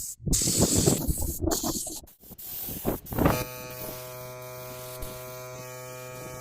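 Irregular scraping and knocking of workshop work, broken by quick cuts, then from about halfway a steady electric motor buzz at a constant pitch.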